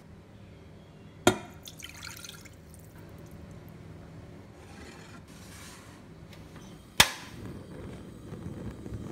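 A sharp click about a second in, then the louder snap of a gas stove's igniter about seven seconds in as the burner lights, followed by the low steady rush of the gas flame.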